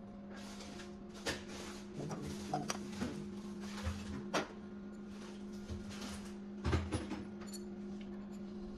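Hand-handling of plastic parts on a manual wire bonder: scattered clicks and knocks as a clear plastic cover is handled and a wire spool is seated on the spool holder, with a cluster of knocks about two-thirds of the way through. A steady low electrical hum runs underneath.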